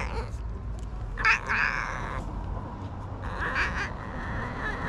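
Stray cat meowing, giving two drawn-out calls, one about a second in and another past three seconds, the kind of sound it makes when touched.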